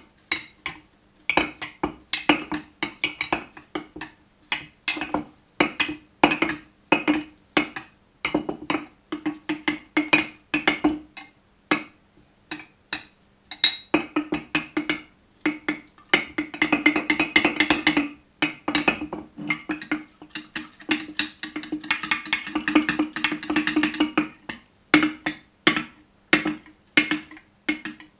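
A metal hand tool stirring styrofoam in petrol inside a glass jar, knocking and scraping against the glass in quick, irregular taps, with two spells of faster rattling stirring.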